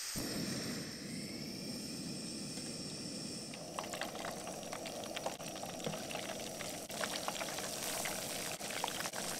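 Breaded catfish chunks deep-frying in hot oil in a pot. A steady hiss thickens about four seconds in into a dense sizzle with many sharp crackles and pops as more battered pieces go in and the oil bubbles up around them.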